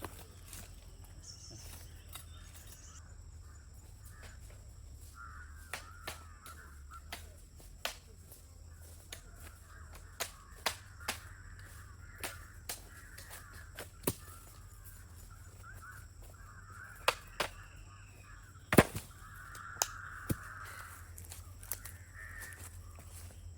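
Birds calling again and again in the background, over scattered sharp knocks and snaps; the loudest knock comes a little before 19 seconds in.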